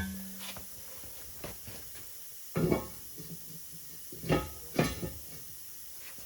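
Metal knocks and clunks from handling a two-piece Humvee wheel and its parts during assembly: a few light taps, then three heavier clunks in the second half.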